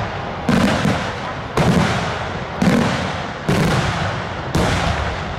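Aerial fireworks shells bursting overhead: five loud bangs about a second apart, each trailing off in a long rolling echo.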